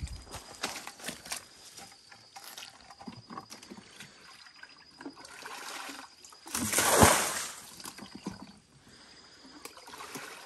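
Water being bailed by bucket out of a spring pit: a loud splash of thrown water about seven seconds in, with scattered knocks and sloshing before it.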